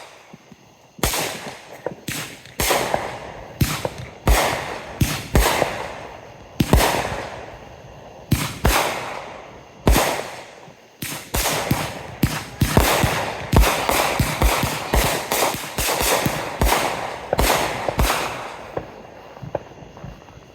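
Fireworks going off in quick, irregular succession: dozens of sharp bangs, each followed by a fading rumble, packed closest together in the middle stretch and stopping shortly before the end.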